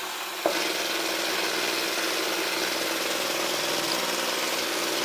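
Xiaomi Mi robot vacuum cleaner running, its fan and brushes giving a steady hum. There is a sharp click about half a second in, after which it runs louder with a fast rattle.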